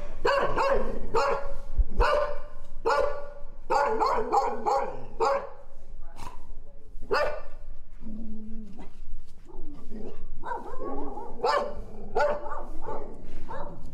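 Dog barking repeatedly, a rapid string of short barks.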